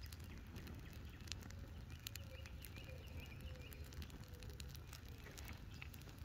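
Welcome mat burning on a stump, crackling with many irregular sharp pops over a steady low rumble.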